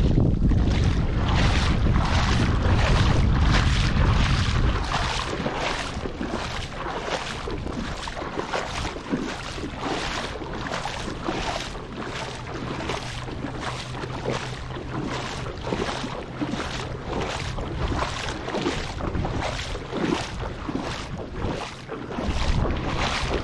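Shallow sea water splashing and sloshing around a camera held at the surface, in a regular rhythm of about two splashes a second. Wind rumbles on the microphone for the first few seconds. A faint steady low hum sits underneath.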